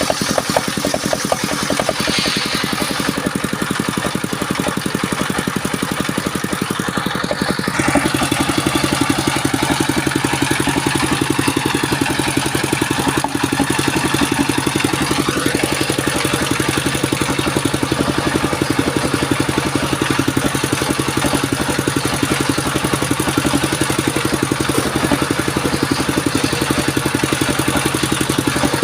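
Engine of a circular saw wood-cutting machine running steadily with a fast, even beat. About eight seconds in its note changes and it runs somewhat louder and fuller, then holds steady.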